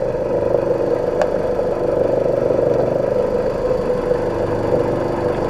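Ford Escort ZX2's 2.0-litre four-cylinder engine idling steadily, warmed up, with the thermostat just opening as air is bled from the cooling system.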